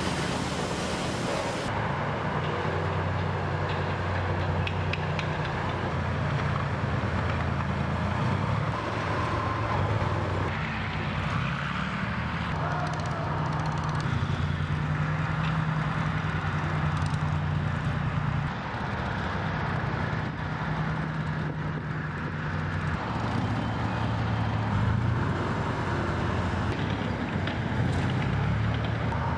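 Engines of restored WWII-era military vehicles running and driving, a steady low engine note that changes with each vehicle. Near the end it is a T-34 tank's V12 diesel on the move over snow.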